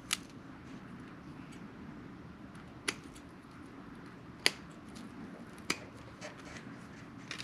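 Electrician's scissors snipping through a cable's fine braided wire shield, trimming it back close to the jacket: four sharp snips, about a second or more apart, with a few fainter clicks between.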